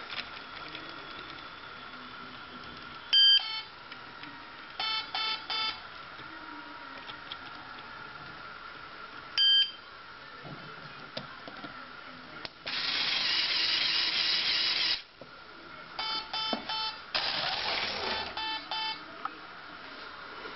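Electronic beeps from the LEGO controls: single loud beeps twice and several quick runs of short pulsed tones. In between, a LEGO motor whirs steadily for a couple of seconds, with a shorter burst near the end.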